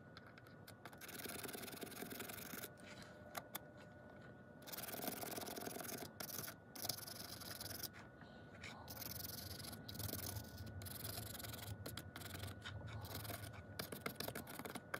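A fibre pen's bristles scrubbing across the painted plastic body of an N gauge model brake van, brushing off weathering paint. The sound is a faint scratchy rubbing in short bouts with brief pauses between.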